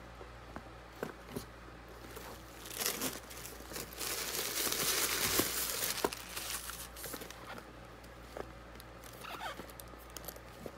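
Crinkling and rustling of packaging as a handbag is unpacked and handled, loudest for a few seconds in the middle, with scattered small clicks.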